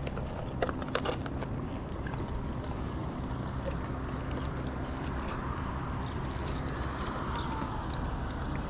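Tree climber's rope rigging: a few sharp metal clicks from the carabiner hardware about a second in, then a hiss that swells as the climbing rope runs through the gear, over a steady low engine hum.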